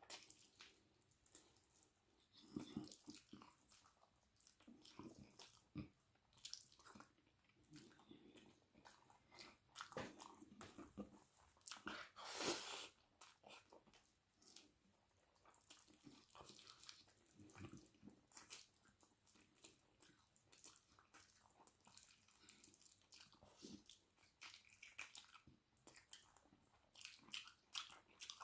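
Close-miked person eating, quietly chewing and biting with irregular wet mouth clicks and smacks, and one louder crunchy bite about twelve seconds in.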